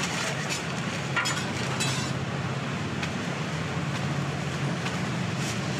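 Ambience of a scallion pancake stall: a steady low machine hum under a haze of noise, with a few sharp clicks.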